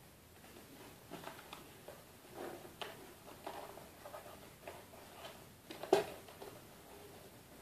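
Quiet handling noises from a cardboard milk-powder box held and mouthed by a baby: scattered small taps and rustles, with one louder knock about six seconds in.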